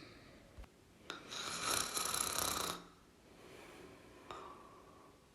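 A person snoring in sleep: a loud, airy breath about a second in that lasts about a second and a half, then a fainter breath near the end.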